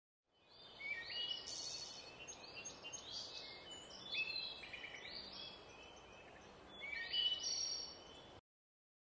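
Several small songbirds singing and chirping in quick, repeated phrases over a steady outdoor hiss. The sound fades in just after the start and cuts off abruptly near the end.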